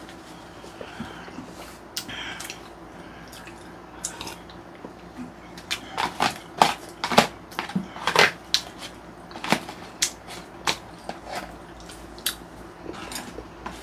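Eating sounds at a table: close mouth sounds of chewing and drinking, with sharp clicks and knocks of a spoon and chopsticks against plastic takeout containers, coming thickest and loudest in the middle.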